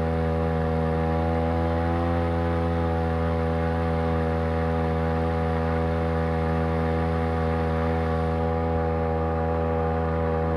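Champion T516 trimmer's small two-stroke engine, fitted on a Sailor 2.0 outboard's lower unit, running steadily at a constant speed.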